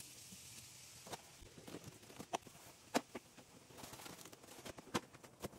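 Scattered light clicks and knocks of hand tools and bits being handled and packed into a plastic tool case, with one sharper knock about three seconds in.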